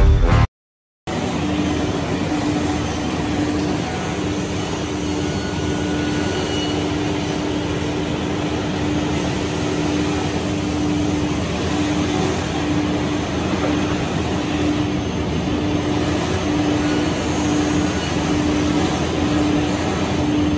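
CNC router at work carving letters into a board: spindle cutting with dust extraction running, a steady machine noise with a hum that, later on, comes and goes in short stretches.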